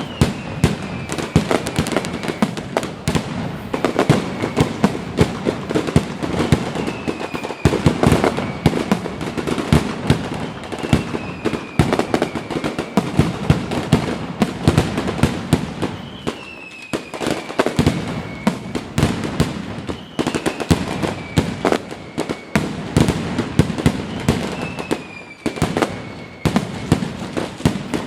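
Fireworks display: a continuous run of bangs and crackling reports, with a short falling whistle about every four seconds.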